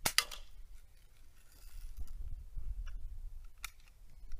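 Vintage Daisy No. 108 Model 39 lever-action BB carbine firing: a sharp snap just at the start with a brief ringing tail. A few seconds later come fainter metallic clicks as the gun is handled again, over a low wind rumble on the microphone.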